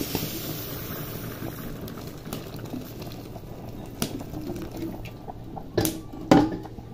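Water poured into an aluminium pot of rice and diced carrot, which then bubbles at a boil. A metal spoon knocks against the pot a few times near the end.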